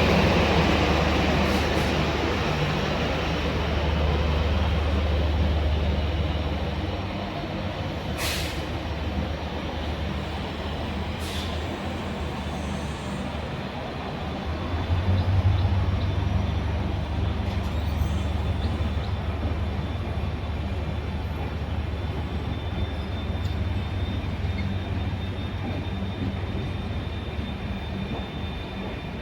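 Passenger express train moving out: a steady low rumble and running noise of the train, gradually fading as it draws away. A couple of brief sharp clicks or hisses come about a third of the way in.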